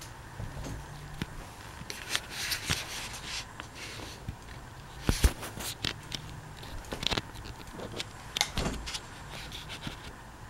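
Hampton Bay Cameron II Plus ceiling fan running on low speed with a faint low hum, along with scattered, irregular clicks and knocks.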